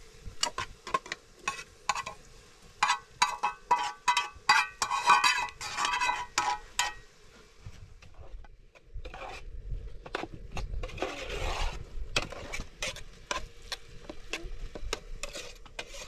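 Metal cooking pot and pan clanking in a quick run of sharp knocks, then a rustling scrape as food is mixed in the pot, with more scattered clinks.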